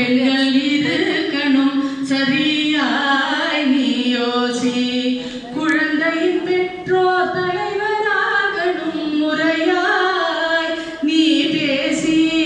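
A woman singing a song solo into a handheld microphone, her voice amplified through a PA system, with long held notes between phrases.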